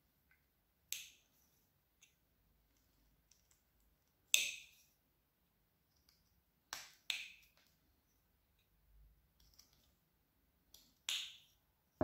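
Carving knife slicing into a small piece of wood branch: about half a dozen short, sharp snicks as thin chips are cut away, the loudest about four seconds in.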